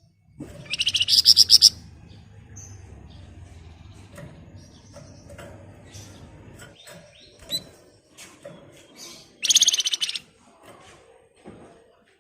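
Flamboyan songbird singing in its 'ngebren' style: two loud, rapid, tightly packed rattling trills of about a second each, one near the start and one about nine seconds in, with scattered faint chirps between them.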